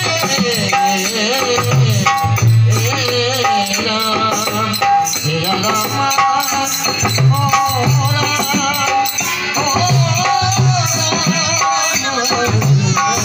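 Devotional bhajan music: a harmonium plays held reed notes and melody over dholak drumming, with a steady jingling rattle keeping time.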